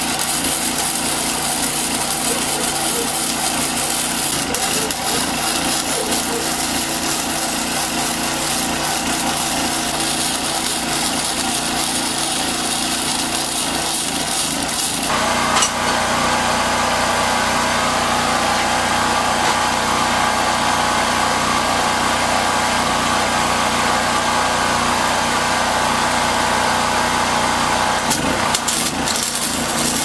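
MIG (wire-feed) welder arc crackling steadily as it lays weld on steel tubing. The sound changes abruptly about halfway through.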